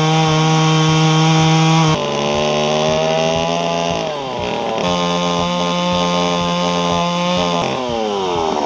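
Chainsaw running at high revs, a steady high engine note whose pitch sags and recovers about halfway through and again near the end.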